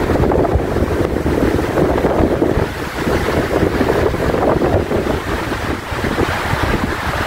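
Strong, gusty wind buffeting the microphone and rushing through conifer trees as a storm builds.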